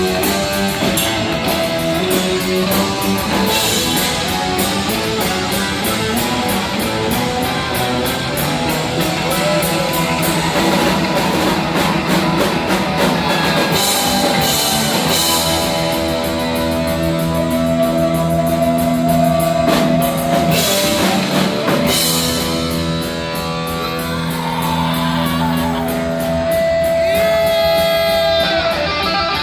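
Heavy metal band playing live: distorted electric guitars over bass and drum kit, with long held guitar notes and pitch bends near the end.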